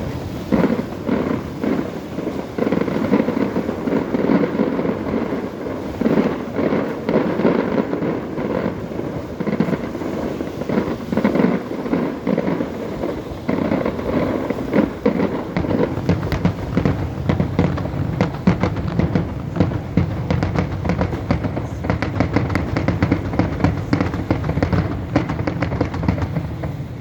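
Fireworks display: a continuous barrage of bangs and cracks, turning into a dense, rapid crackle in the second half.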